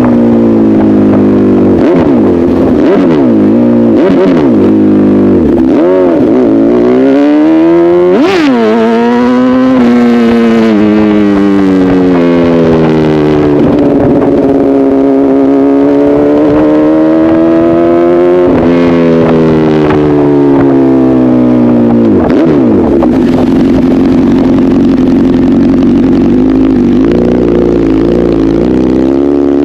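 Honda CBR1000RR's inline-four engine through an SC-Project aftermarket exhaust, ridden and revved, its pitch rising and falling repeatedly. There is a sharp high rev about eight seconds in and a long climb that drops off near twenty seconds, then it holds steadier.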